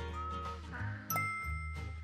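Background music with a steady bass line and melody; about a second in, a bright bell-like chime strikes and rings on over it.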